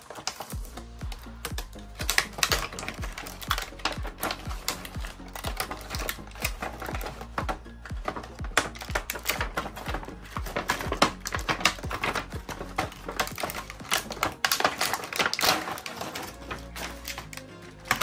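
Clear plastic blister packaging crackling and clicking as it is handled and pulled off a toy makeup case, over background music with a steady beat.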